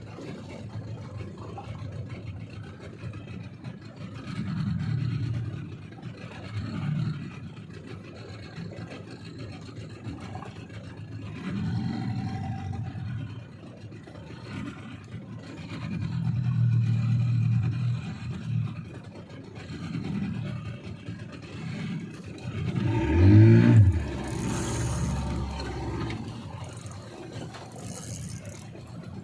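Small fishing boat's outboard engine running under a low, uneven rumble of wind and water. About 23 seconds in, it revs up briefly and drops back.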